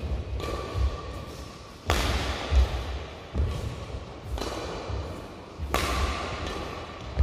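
Badminton rally: several sharp racket-on-shuttlecock hits about a second or so apart, each ringing out in the reverberant metal-clad hall, with low thuds of shoes landing on the court.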